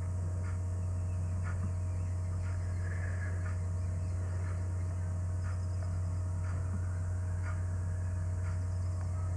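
A steady low electrical hum, like mains hum picked up on the recording, with a few faint scattered clicks.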